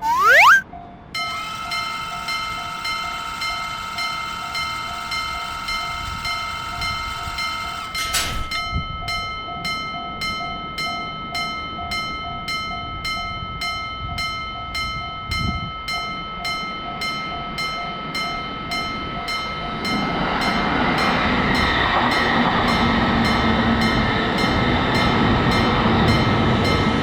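Japanese level-crossing warning bell ringing in a steady rhythm, about two strikes a second, after a brief rising tone at the very start. From about two-thirds of the way in, the noise of a passing electric train builds under the bell.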